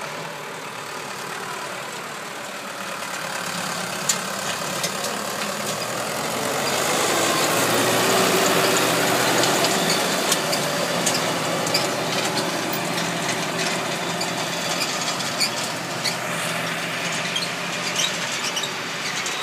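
Tractor engine running under load while pulling a rotary-tiller ridging, fertilizing and film-laying machine through dry soil, its blades churning the earth. The sound swells as the machine passes close, about a third of the way in, and stays loud, with scattered sharp clicks.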